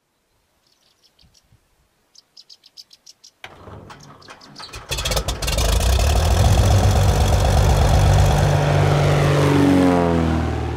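Propeller engine of a high-wing single-engine light aircraft starting up: a few faint clicks and a quick run of ticks, then the engine catches about three and a half seconds in and runs loud from about five seconds in. Near the end its pitch falls as the plane passes by.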